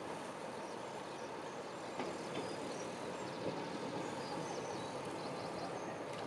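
Distant diesel locomotive approaching slowly, a steady engine rumble, with birds chirping over it.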